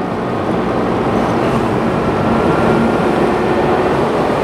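Car running along a wet road, heard from inside the cabin: a steady engine hum under the hiss of tyres on wet pavement, growing slightly louder as the car gathers speed.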